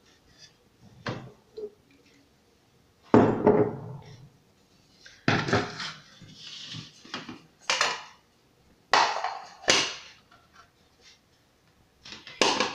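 A blender jar and a glass juice pitcher being handled and set down on a hard counter: a string of separate knocks and clatters, the loudest about three seconds in, with quiet gaps between them.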